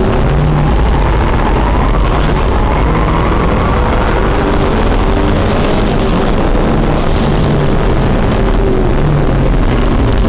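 Car engine running hard on a race circuit, heard from inside the cabin with heavy road and wind noise; the revs climb over a few seconds early on, with a few brief high squeaks near the middle.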